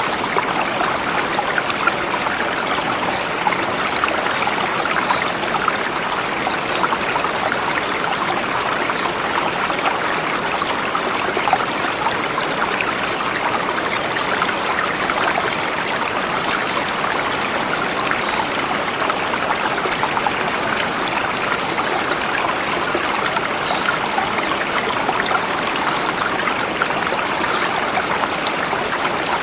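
Forest river flowing steadily over rocks: a constant rushing and splashing of water.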